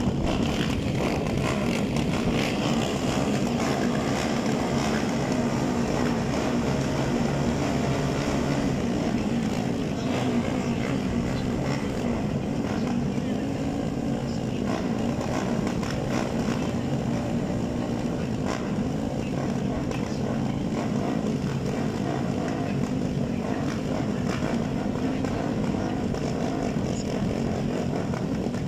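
Several supermoto motorcycle engines idling together on the start grid, a steady running sound with no launch.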